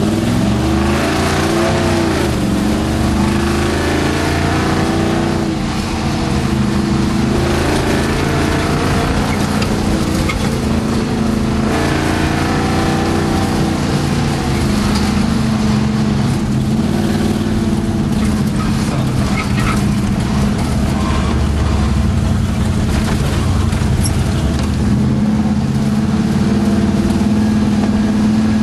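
4x4 vehicle's engine heard from inside the cab while driving fast over dirt, the revs rising and falling again and again as it accelerates and shifts, over a steady rush of road and wind noise.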